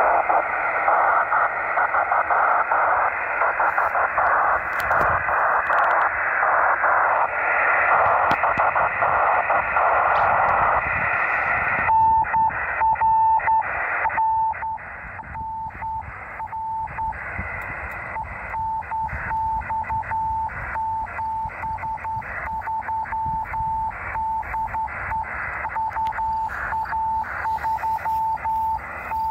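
Yaesu transceiver on USB, the IF radio of a 10 GHz station, putting out loud, rough receiver hiss for about twelve seconds. A Morse code tone then starts, keyed on and off through the hiss.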